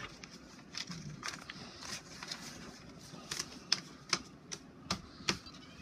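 All-in-one inkjet printer working through a print job: a run of sharp mechanical clicks and ticks, about two a second and irregular, sharper in the second half.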